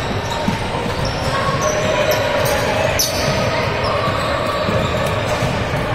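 Basketball game in a gym: a ball bouncing on the court and short high sneaker squeaks, over the steady chatter of spectators in the hall.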